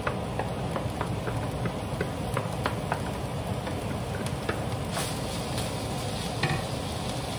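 A spoon tapping and scraping drained, browned ground beef out of a plastic colander into a skillet, a few light clicks a second over a steady sizzle.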